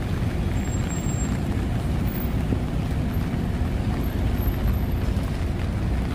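Steady low rumble of road traffic mixed with falling rain, with no single passing vehicle standing out.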